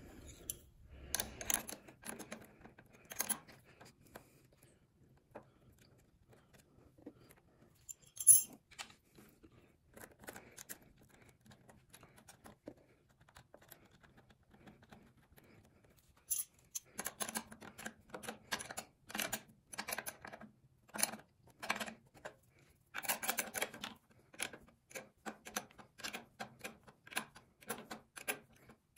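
Ratchet wrench clicking in short back-and-forth strokes on the 10 mm battery terminal bolts, with scattered clinks of metal tools and parts. The clicking comes in a steady run of about two or three strokes a second in the second half, after a single sharp clink about a third of the way in.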